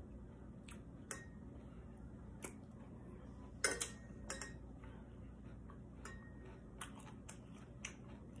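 Metal spoon clinking and scraping against a ceramic bowl of cereal and milk: a scattering of light, irregular clicks, the loudest about three and a half seconds in.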